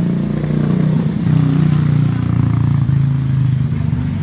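Motorcycle engine running, its note rising a little and getting louder about a second in.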